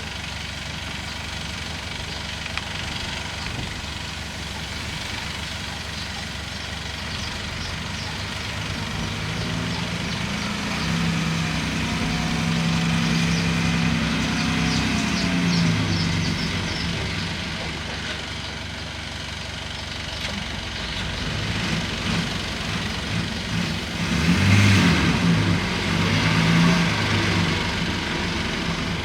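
Bulldozer's diesel engine running steadily, growing louder and stronger in pitch twice: about ten seconds in, and again near the end.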